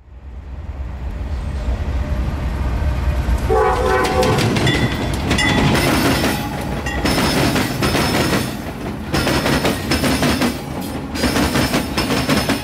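Norfolk Southern diesel freight locomotives rolling past close by: a low rumble fades in, a short horn blast sounds about three and a half seconds in, then loud, continuous clatter of wheels over the rail crossing diamond.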